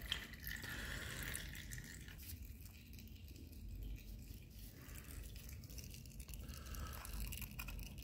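Faint scraping and small clicks of a metal hook pick worked around the oil filter to free it from its housing on a KTM 390 Duke engine, with a thin stream of oil trickling into the drain pan.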